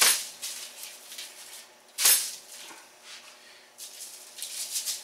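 A paper sheet rustling and crinkling, with a gritty scratch of dry spice rub, as thick rib eye steaks are handled and pressed in the seasoning. Two louder rustles, at the start and about two seconds in, then softer ones near the end.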